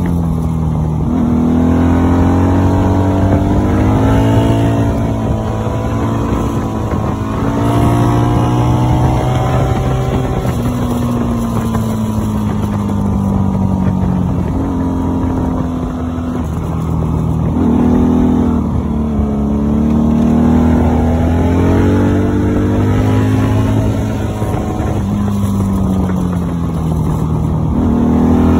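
Honda Magna VF750C's V4 engine running under way, its pitch rising and falling several times as the throttle is opened and eased off, over a steady rumble of road and wind noise.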